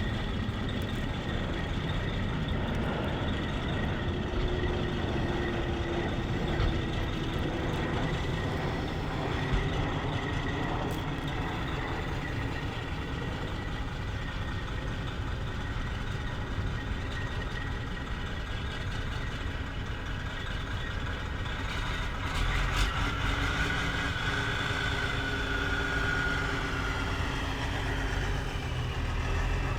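Semi truck's diesel engine running steadily, a constant heavy rumble.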